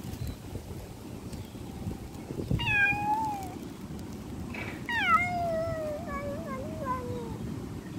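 A street cat meowing twice: a short meow about two and a half seconds in, then a longer meow about five seconds in that slides down in pitch and wavers.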